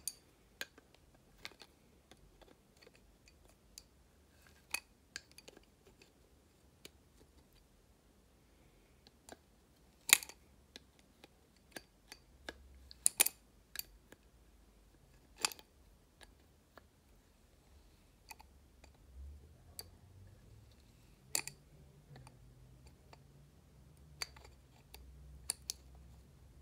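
Scattered sharp clicks and light metal-on-plastic knocks of an adjustable wrench being fitted to and turned on a small nut of a plastic faucet nozzle assembly, with a few louder clicks several seconds apart.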